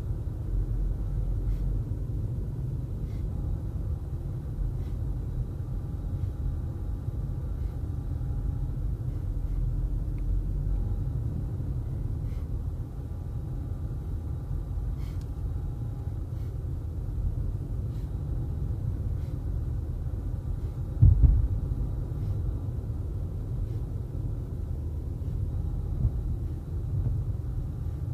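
Low, steady rumble of a car driving on a paved road, heard from inside the cabin, with one sharp louder thump about three-quarters of the way through.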